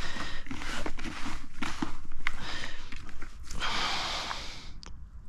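Hands scrunching and squeezing damp bread and bran groundbait in a plastic bucket, a run of rustling, squelching handfuls with small clicks from the bucket. About four seconds in a longer rush of noise as the bucket is dipped at the pond's edge to wet the mix.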